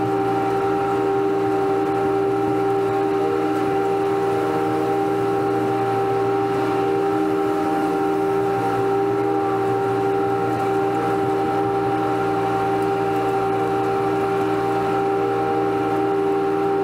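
Riding lawn mower's engine and cutting blades running steadily at full throttle while mowing, a constant drone with a steady whine.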